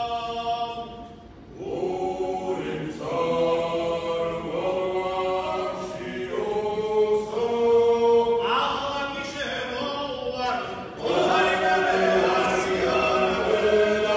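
Male vocal ensemble singing a Georgian Meskhian perkhuli (round-dance song) a cappella, several voices in close polyphony. The singing drops off briefly about a second in and comes back louder from about eleven seconds.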